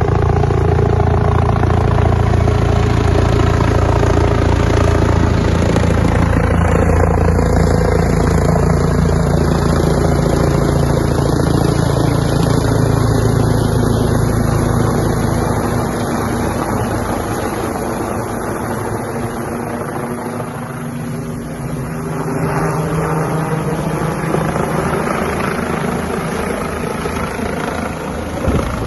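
Bell 429 twin-turbine helicopter in flight, its rotor and engines running loud and close, then fading somewhat past the middle and growing again near the end, the pitch sliding as it moves about overhead.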